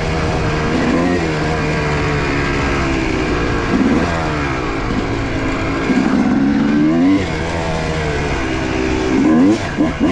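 Yamaha YZ250 single-cylinder two-stroke dirt bike engine heard from the rider's position, with the throttle worked on and off along the trail. Its revs climb sharply about four, seven and nine and a half seconds in and fall away in between.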